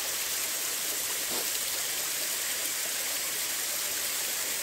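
Water spilling over a small concrete weir and splashing into a shallow pool below, a steady rushing sound.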